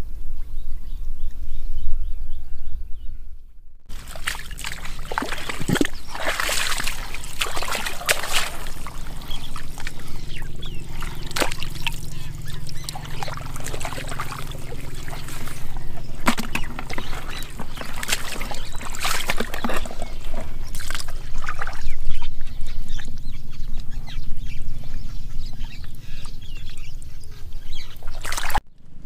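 Water and mud splashing and sloshing in irregular splashes and drips, in shallow muddy water. The sound changes abruptly about four seconds in and again just before the end.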